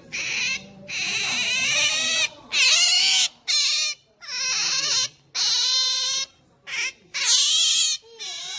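Pet otter making its pampering noise: a string of about eight high, wavering whining squeals, each up to about a second long, with short gaps between them, as it begs for attention.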